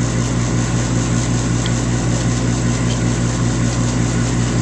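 Steady machine hum over a broad, even hiss, unchanging throughout.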